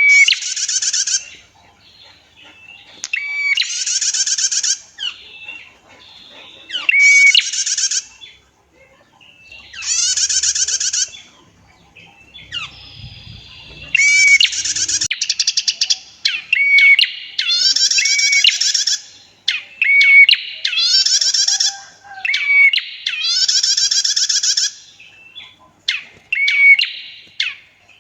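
Female prinia (prenjak) calling over and over: each phrase a short clear note followed by a long, buzzy rattling trill, the long 'tiir' call, repeated every few seconds and coming faster in the second half.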